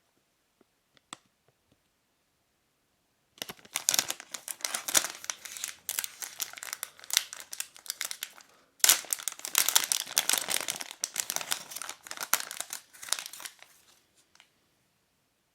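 Crinkly packaging of a USB cable being handled and opened, in two bouts of dense crackling with some tearing, the second starting with a sharp rustle about nine seconds in.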